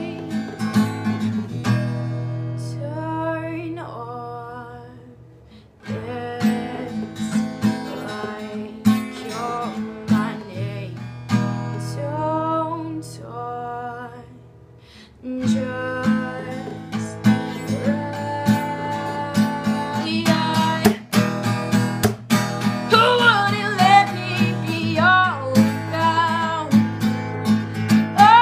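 Acoustic guitar strummed by hand while a woman sings along. Twice the playing thins out and fades, then the strumming comes back in sharply, about six and fifteen seconds in.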